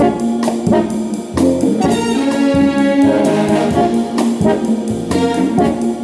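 Background music: a jazz tune led by brass instruments over a steady beat.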